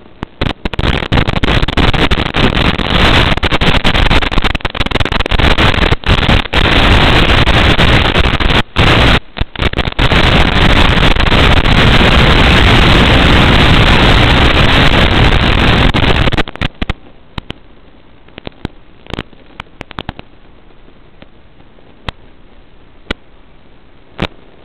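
Loud static hiss from an analog FPV video receiver's audio channel, the sign of a weak, breaking-up video link. It starts about half a second in, with brief dropouts, cuts off suddenly at about 16 seconds, and gives way to quiet background with scattered clicks.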